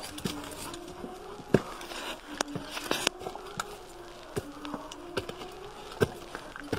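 Insects buzzing in short, repeated hums, with irregular clicks and scuffs of footsteps on concrete steps littered with dry leaves.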